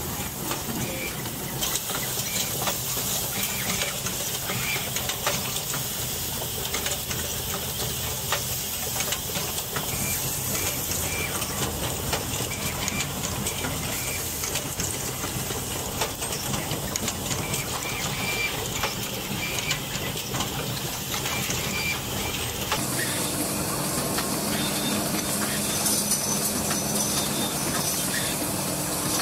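Automated motor assembly machines running: a steady hiss with frequent sharp clicks and clacks from the moving parts. About three-quarters of the way through, the sound shifts to a different machine with a steadier hum.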